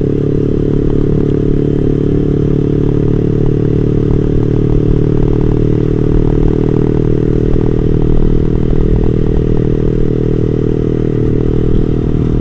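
Yamaha R15 V3's single-cylinder engine through an R9 GP SS aftermarket exhaust, riding along at a steady, low engine speed without revving.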